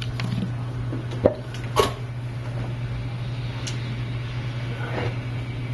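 Hot air gun running with a steady low hum, with two short knocks of handling about a second and a half in and a few faint clicks.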